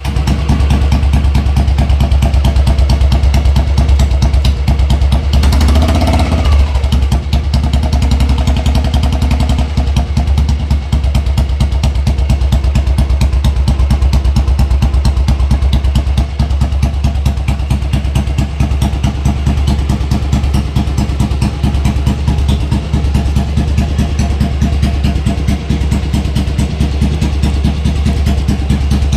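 Old Royal Enfield Bullet's single-cylinder engine running steadily at idle, its exhaust giving the even, low thumping beat the bike is known for.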